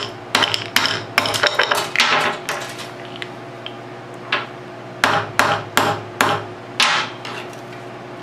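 Hammer striking a copper-pipe ferrule to crimp it flat onto paracord: sharp metal taps in two quick bursts, with a pause of a couple of seconds in the middle.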